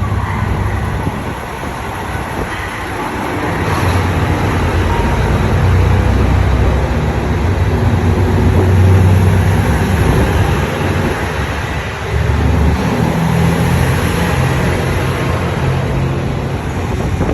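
Diesel limited-express train pulling out of the station, its underfloor engines running under load in a steady low drone that builds over the first several seconds and steps up again about twelve seconds in.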